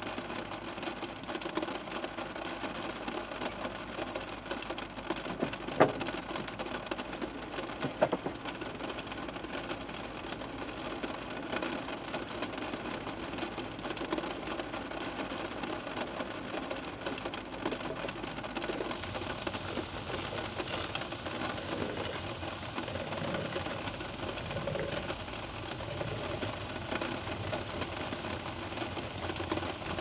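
Rain pattering steadily on the van's roof, heard from inside the van, with two sharp knocks about six and eight seconds in.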